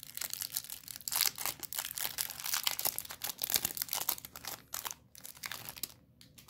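Clear plastic wrapper crinkling and tearing as it is pulled off a stack of trading cards, in quick irregular crackles that stop about five and a half seconds in.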